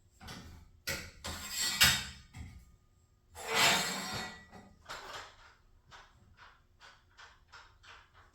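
Metal clanking and clinking, with two loud bangs in the first half, then a run of light, evenly spaced clicks, about three a second, near the end.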